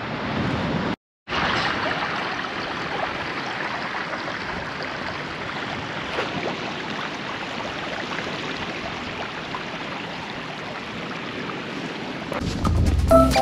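Steady rushing of ocean surf washing on the shore. It cuts out for a moment about a second in, and background music with a beat comes in near the end.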